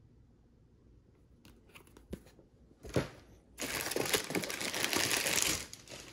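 Plastic air-cushion packing crinkling and rustling for about two seconds as a book is pulled out from among it in a cardboard box, after a few light clicks and a single knock.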